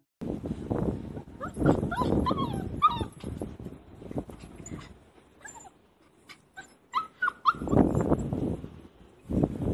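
Puppy whimpering and whining in short, high cries that rise and fall, in two clusters, as it hesitates at the top of a flight of steps. The cries come over bursts of low rumbling noise.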